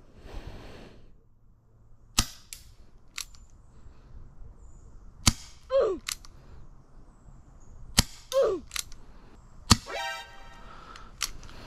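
Green-gas airsoft revolver firing four sharp shots a couple of seconds apart, with lighter clicks between them. A short falling tone follows the second and third shots.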